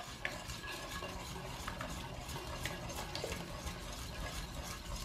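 Wire whisk beating egg whites and condensed milk in a stainless steel pot: a steady soft swishing through the liquid, with a few light clicks of the wires against the pot.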